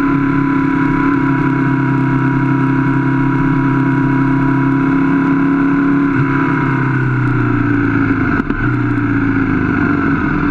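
Aprilia Falco's V-twin engine running steadily at low cruising speed, with wind rush over the bike. The engine note eases slightly lower in pitch in the second half, with a short break in the sound about eight and a half seconds in.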